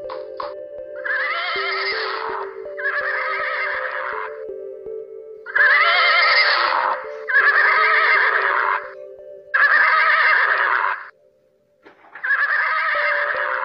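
A horse whinnying again and again: six calls of about a second and a half each, with a brief silence before the last one. Steady low background music runs underneath.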